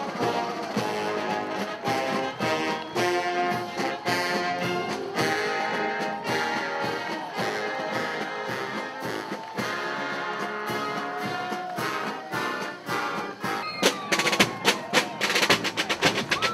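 Military marching band's brass section playing a march, with trombones, trumpets and sousaphones. Near the end the brass stops and the drums take over with a sharp cadence of about three strokes a second.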